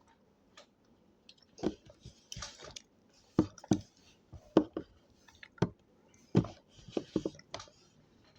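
A person chewing and eating food close to the microphone: irregular sharp mouth clicks and smacks.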